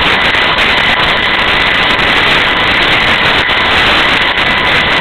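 Loud steady hiss and rumble with a thin, unchanging high whine: electrical noise on the nest camera's audio feed.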